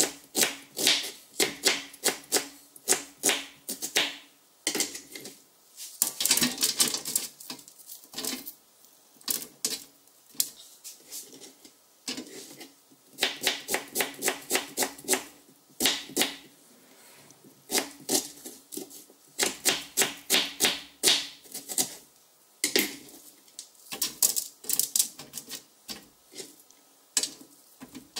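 Onion being cut into wedges and broken apart over a parchment-lined metal baking tray: runs of quick, crisp clicks and snaps with short pauses, and a few soft rustles. A faint steady hum sits underneath.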